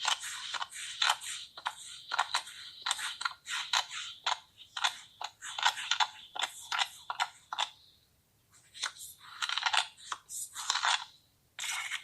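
Kinetic sand being cut: a run of short, crisp, crunching strokes at an uneven pace, with a pause of about a second two-thirds of the way through.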